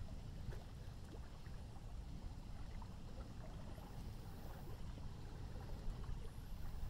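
Riverside ambience under a passing thunderstorm: a steady low rumble with faint scattered ticks, like water lapping or drops. No single event stands out.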